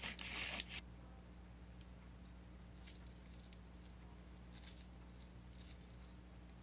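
Slime being squished and worked by hand, crackling and popping loudly for under a second, then only faint scattered clicks and pops.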